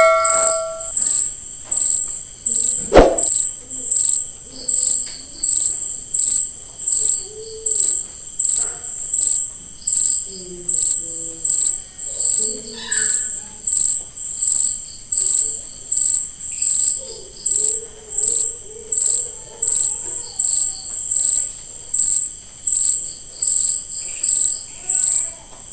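An insect chirping: a loud, high-pitched chirp repeating steadily about once a second. A single sharp click comes about three seconds in.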